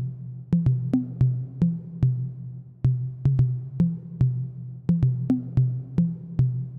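Background music: an electronic track with a drum-machine beat over a deep bass line.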